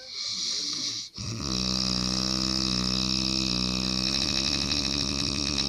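A person snoring: a short breathy snore, a brief break about a second in, then one long, steady, low buzzing snore that holds through the rest.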